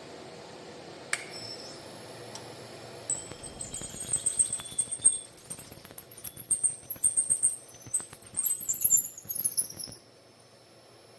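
Three-angle valve seat cutter on a mill cutting an exhaust valve seat in an air-cooled Porsche 911SC aluminium cylinder head. High metallic chattering and squealing sets in a few seconds in, with a tone sliding down near the end, and cuts off abruptly about ten seconds in.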